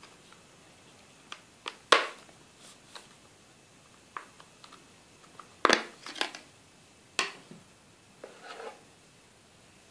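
Plastic back cover of a Microsoft Lumia 640 being pried off the phone: a series of sharp plastic clicks and snaps as its clips release. The loudest snap comes about two seconds in, with a cluster around six seconds.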